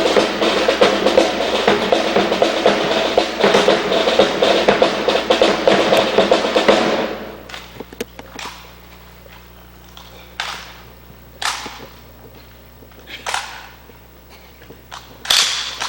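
Marching drums playing a fast, dense cadence that cuts off suddenly about seven seconds in, followed by a handful of separate sharp knocks.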